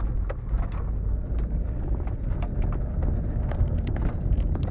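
Steady low rumble of travel along a paved lane, wind buffeting the microphone along with road noise, with scattered small clicks and rattles.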